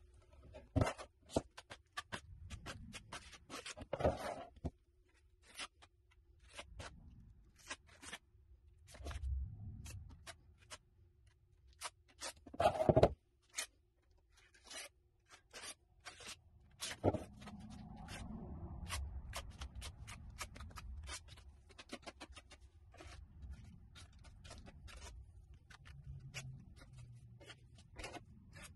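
A metal spreading knife scraping wet Feather Finish cement skim coat across a laminate countertop, with many sharp clicks and taps of the blade and a few louder knocks about 4 and 13 seconds in.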